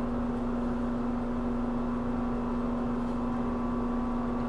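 A steady, unchanging hum at one pitch, with a low rumble beneath it, from a machine or appliance running in the room.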